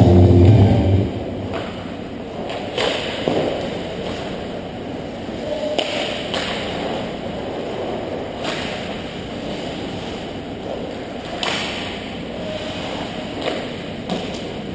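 Ice hockey skates scraping and cutting on the ice, with scattered short scrapes and knocks of sticks and puck over steady rink background noise. Rink music stops about a second in.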